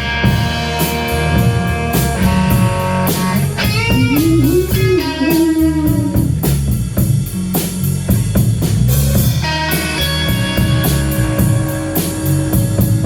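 Blues-rock band playing an instrumental passage: a guitar lead with bending notes over bass and drums, with no singing.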